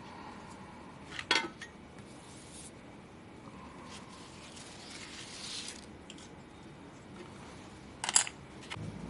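Small hard parts clicking against each other as they are handled, with a sharp click a little over a second in and a louder one near the end. A soft rubbing sound comes in between.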